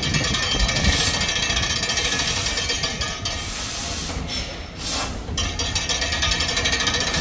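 Stockton Flyer steam-train sculpture's show: a continuous rapid mechanical rattle and clatter, with two bursts of steam hiss, one about a second in and a longer one around five seconds in.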